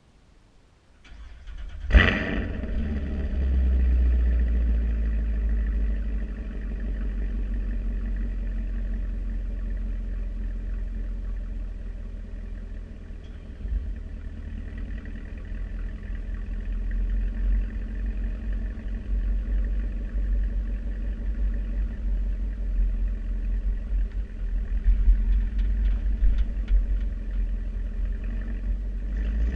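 Stock exhaust of a 2016 Chevrolet Camaro SS's 6.2-litre LT1 V8 starting up: it cranks briefly about a second in and catches with a loud flare about two seconds in. It then settles from a high idle to a lower, steady idle.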